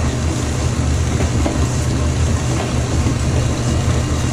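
1953 Hobart 20-quart stand mixer running under load as it kneads pizza dough, a steady low motor-and-gear hum with an even mechanical rumble over it.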